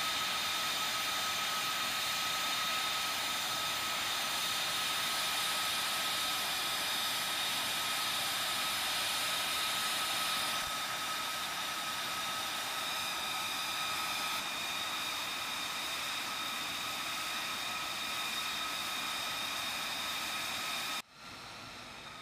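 Fighter jet's turbofan engine running at idle: a steady high whine with several held tones, a little quieter after about ten seconds. Near the end it cuts sharply to a quieter jet sound whose tones slide down in pitch.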